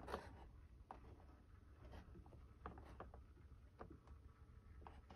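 Near silence with a few faint, scattered taps and clicks of a boxed Funko Pop vinyl figure in a plastic protector case being handled and turned in the hands; the loudest tap comes right at the start.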